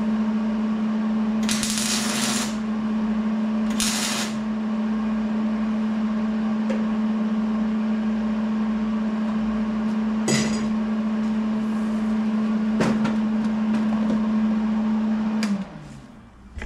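An electric shop machine hums steadily, with two short, loud hissing bursts about a second and a half and four seconds in. It winds down with a falling tone near the end.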